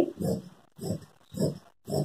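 Fabric scissors snipping through folded cotton cloth, four cuts about half a second apart.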